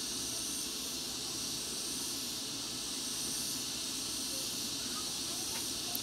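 Steady hiss of background noise.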